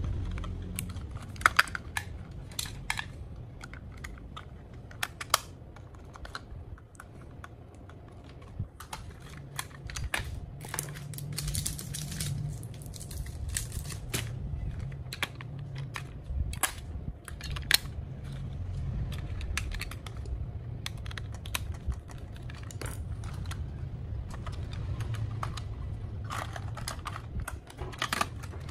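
Irregular small plastic clicks, taps and clatter as a small screwdriver works the battery-cover screws of a toy RC drift car and its pistol-grip transmitter and the plastic parts are handled, over a steady low rumble.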